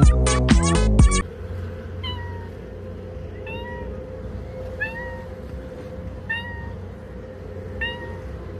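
Electronic music cuts off suddenly about a second in, then a domestic cat meows five times, short meows roughly a second and a half apart, over a steady low hum.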